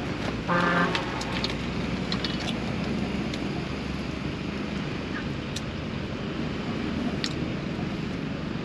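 Steady low rumble of road traffic and wind at a roadside campsite. A short pitched sound about half a second in is the loudest thing, with a few faint clicks scattered through.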